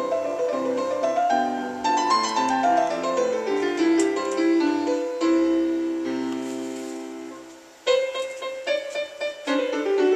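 Piano music playing through the speaker of a restored Chevrolet truck radio. One passage fades out about eight seconds in, and another starts abruptly right after.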